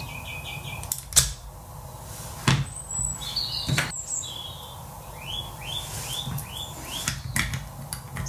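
Sharp knocks and clicks of a small metal bench vise being handled, set down on the table and closed on a speaker connector. A small bird chirps in the background, with a run of about five quick falling chirps near the end.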